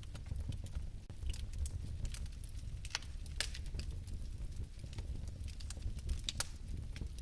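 Fireplace fire burning: a steady low rumble with scattered sharp crackles and pops, the loudest about three seconds in and again near the end.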